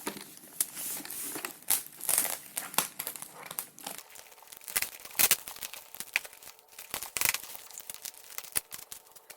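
Parcel packaging being crinkled and torn open by hand, in irregular rustles and rips.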